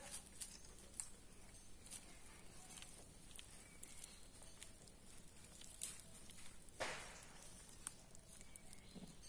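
Faint crackling and rustling of dry leaves and twigs as monkeys move and handle sticks, scattered small clicks with one louder rustle about seven seconds in.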